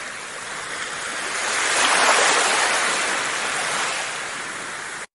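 Ocean surf washing on a beach: a steady rush of waves that swells to its loudest about two seconds in, eases off, and cuts off abruptly near the end.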